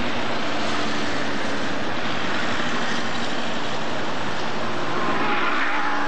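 City road traffic: cars passing over a steady rush of noise, swelling briefly about five seconds in as a vehicle goes by close.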